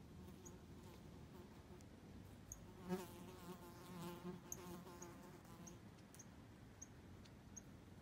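A flying insect buzzing past, its wings humming faintly from about three seconds in for about three seconds. Faint, short, high chirps sound every half second or so throughout.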